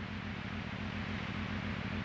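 Police scanner radio hiss between transmissions: a steady static with a low, rapidly pulsing buzz underneath.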